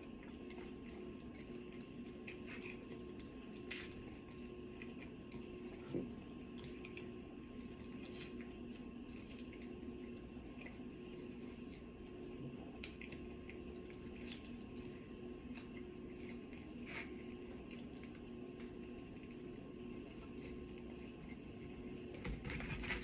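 Someone eating pizza: faint wet mouth and chewing sounds with scattered small clicks, over a steady low hum.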